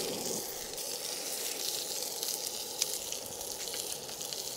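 Galbi (ribs) sizzling as they cook, a steady hiss broken by a few sharp pops of fat.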